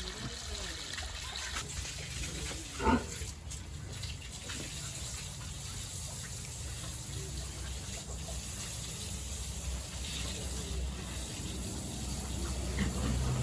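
Water trickling and splashing over a steady low hum, with one brief loud cry about three seconds in.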